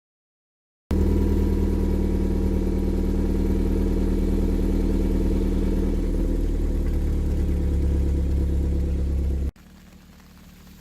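Suzuki Swift Sport four-cylinder engine running steadily with a rattling (gara-gara) abnormal noise, the noise the owner reports at 130,000 km. It starts abruptly about a second in and cuts off abruptly near the end, giving way to a much fainter engine sound that slowly grows louder.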